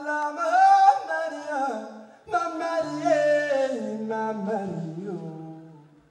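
A man singing two long, sliding, wavering phrases with almost no accompaniment, a low held note sounding under the second phrase.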